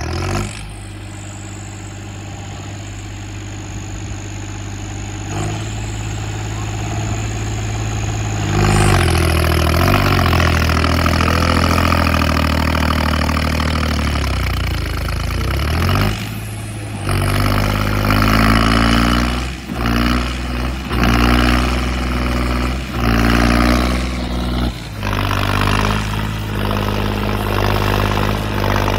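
John Deere 5050D diesel tractor engine labouring hard while pulling a disc harrow, with a thin high whistle over it during the first several seconds. It gets louder about a third of the way in, and in the second half its pitch surges and sags again and again as it struggles under the load.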